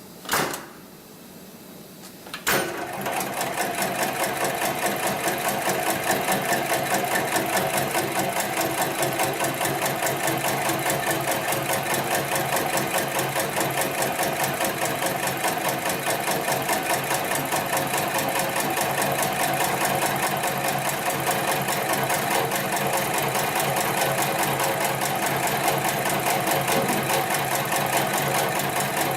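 HIGTEX71008 extra heavy-duty computer-controlled pattern sewing machine stitching rope. A short knock comes first, then about two and a half seconds in the machine starts and runs at a fast, even stitching rhythm.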